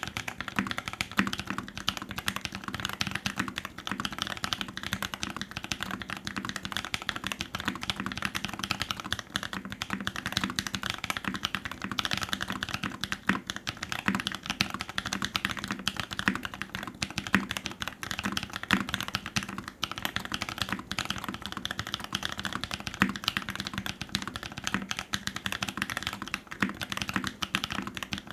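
Continuous fast typing on a custom gasket-mounted mechanical keyboard (AEBoards Constellation with a 1.5 mm aluminium plate and lubed Naevy r1.5 switches). It sits on a leather desk mat that damps the desk underneath, so the keystrokes come through as a dense, even stream of clacks.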